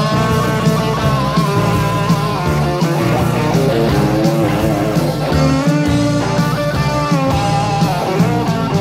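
1980s Latvian rock song playing from a cassette tape transfer of an old reel-to-reel recording: a full band in a steady passage with sliding melodic lines.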